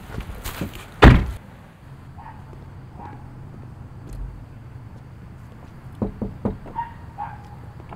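A car door slams shut about a second in. About six seconds in, a few quick knocks, as on a front door.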